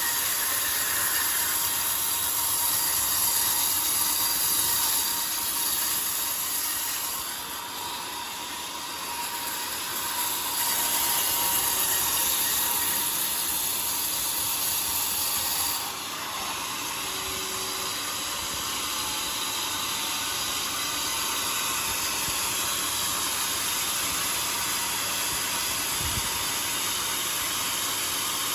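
Homemade sawmill saw cutting through a johar log, a steady hissing rasp that eases for a few seconds about seven seconds in and changes tone about sixteen seconds in.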